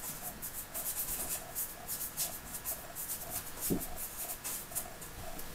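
Bristle brush scrubbing oil paint onto a painting panel in quick short strokes, a rapid scratchy brushing about four strokes a second.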